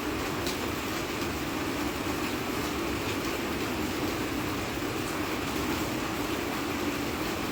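Steady rain falling: an even, unbroken hiss with a low rumble under it and a few faint drop ticks.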